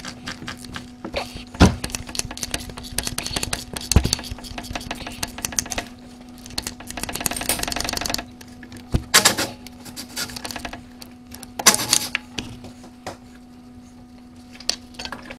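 Hand ratchet clicking in rapid runs as the 13 mm exhaust manifold bolts are backed out, with a few sharp metal knocks among them and a steady low hum underneath.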